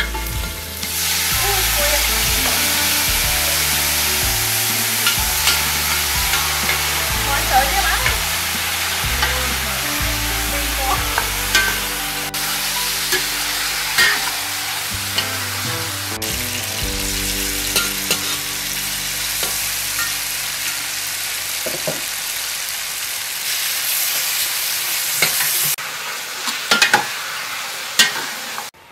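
Chopped chicken pieces with lemongrass frying and sizzling in a large aluminium pot, with a utensil clicking and scraping against the metal as they are stirred. The sizzle drops away near the end, leaving a few clinks; soft background music with a low bass runs underneath.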